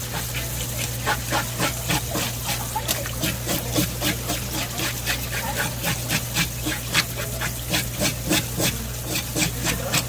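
Quick, even scraping strokes of a blade on a fish, about three a second, as a rock bream is scaled and worked for sashimi. A steady low hum runs underneath.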